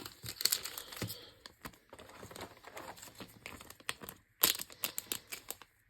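Plastic card sleeve crinkling and rustling as a trading card is slid into it, with a sharper scrape about four and a half seconds in.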